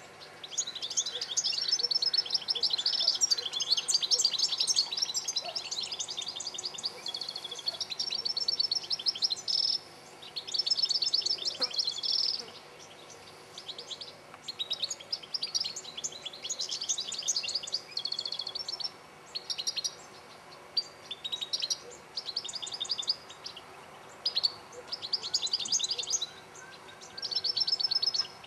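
European goldfinches singing: a rapid, liquid twittering in phrases of a second or two, broken by short pauses.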